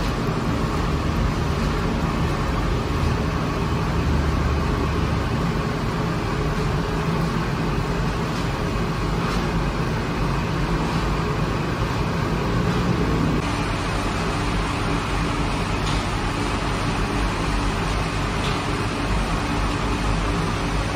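Steady machine drone with a low hum and no speech; the hum changes about thirteen seconds in.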